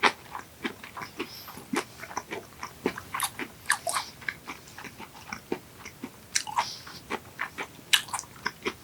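Close-miked chewing of raw yellowtail sashimi: irregular wet clicks and smacks of the mouth working the fish.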